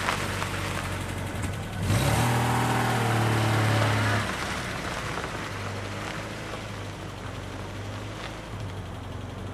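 1974 Peugeot 304 Coupé S's four-cylinder petrol engine under way as the car drives across gravel, with tyres crunching on the stones. About two seconds in, the engine note turns loud as the car accelerates, then drops back after a couple of seconds as it eases off and rolls on.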